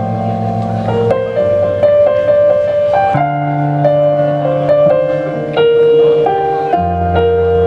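Keyboard playing the slow intro of a ballad: held chords over low bass notes, with a simple melody on top, the chord changing every second or two.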